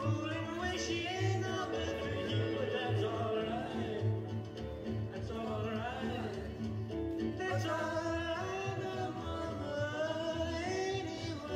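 A song: a voice singing a melody over band backing with a bass beat.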